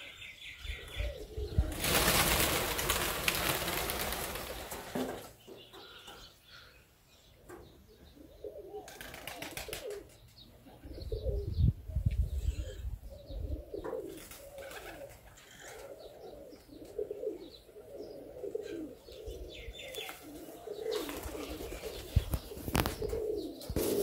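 Domestic pigeons cooing over and over, with loud bursts of wing flapping, the longest a few seconds in.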